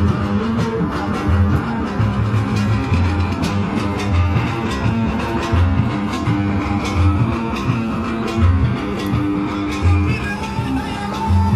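Oud playing over a steady low beat, with light percussive ticks throughout.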